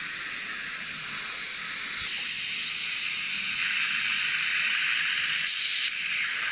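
Dental suction hissing steadily, growing louder about two seconds in.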